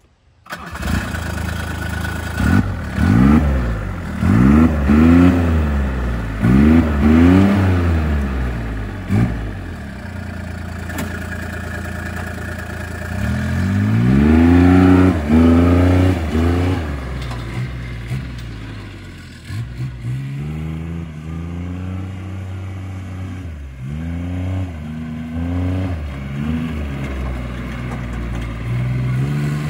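Turbocharged three-cylinder Kubota diesel of a Bobcat UTV, exhausting through a 4-inch stack, starts about half a second in. It is revved in a string of quick blips over the next several seconds, then revved up hard as the vehicle pulls away, with more revs near the end.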